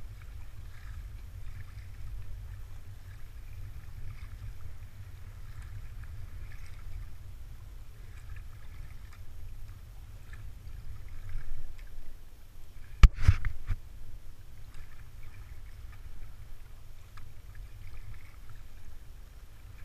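Kayak paddle strokes dipping and splashing in choppy sea water every second or two, over a steady low rumble. A single sharp knock about two-thirds of the way through is the loudest sound.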